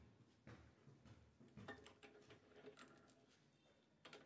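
Very faint, scattered light clicks of loose wooden captive rings knocking against each other and the turned spindle they sit on.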